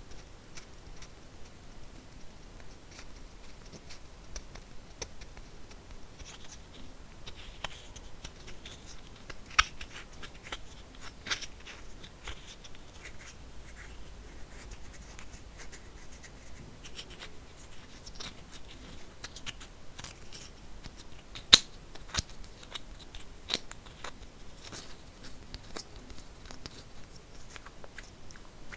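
Empty plastic kvass bottle handled close up: a continuous light scratching and crackling of the plastic, broken by sharp clicks and taps, the loudest about two-thirds of the way through.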